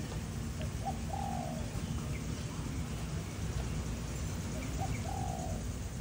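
A bird calling twice, about four seconds apart, each time a short note followed by a longer arched one, over a low steady background rumble.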